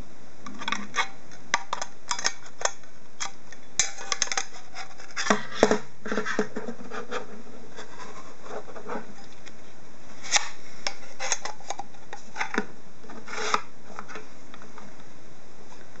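Hard drive enclosure covers being slid onto the plastic drive frame: scattered scraping and rubbing with small clicks, in two busy spells.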